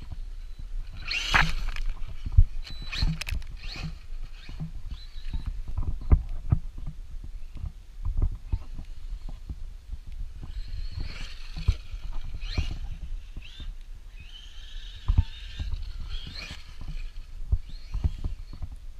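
Traxxas Maxx RC monster truck driving, its electric motor whining in short irregular bursts among many thumps and knocks.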